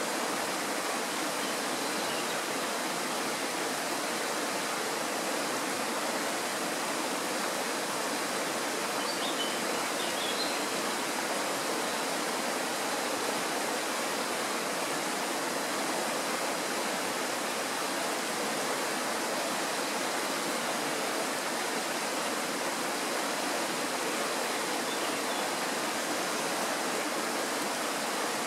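Kirowa Woda, a Tatra mountain stream, rushing steadily: an even, unbroken water noise that does not change.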